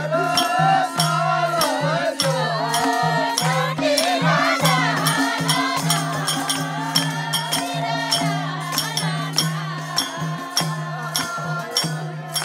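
Live Nepali folk music: singing over a madal barrel drum beaten in a steady pattern, with sharp rattling percussion strokes and hand clapping keeping the beat.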